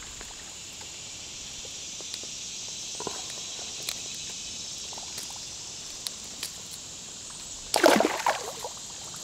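A small smallmouth bass being unhooked from a crankbait, with a few faint clicks as the hooks are worked free. About eight seconds in comes a splash as the fish is dropped back into the river. A steady high hum of summer insects runs underneath.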